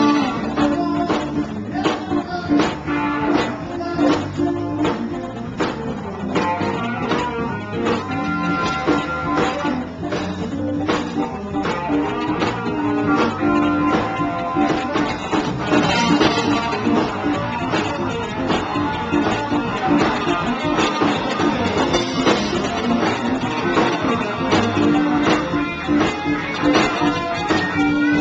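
Live blues-rock band playing: electric guitars over a full drum kit with steady beats and cymbals, heard loud from on the stage.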